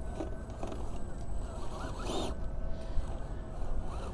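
Electric RC rock crawler (MST CFX) working over rock: a short raspy whir from its motor and drivetrain about two seconds in, over a low steady rumble.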